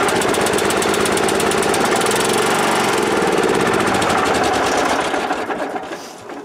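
Kohler Magnum 16 hp engine on a Wheel Horse garden tractor running on full choke just after firing from a long cold crank. About five seconds in it falters and dies away as the choke is pushed off.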